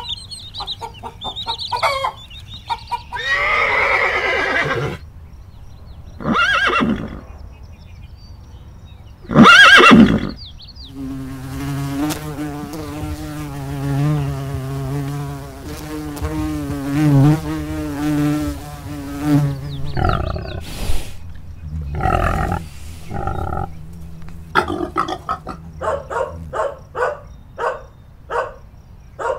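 A run of farm animal calls: several short loud calls in the first ten seconds, then a long steady buzz with a wavering pitch lasting about eight seconds. A few more calls follow, and rapid repeated chirps come near the end.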